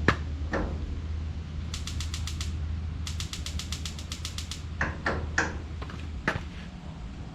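Gas heater's spark igniter clicking rapidly, two runs of about ten clicks a second, with a few knocks and a steady low hum. The burner has not yet lit: the freshly installed gas line still has air to bleed out.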